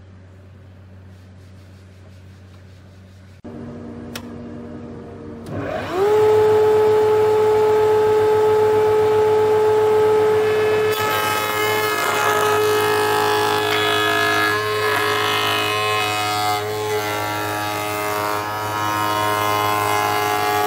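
Table-mounted router switched on about five seconds in, its whine rising quickly to a steady high pitch. From about eleven seconds the bit cuts into a hardwood board fed along the fence, adding a rough, noisy cutting sound over the whine.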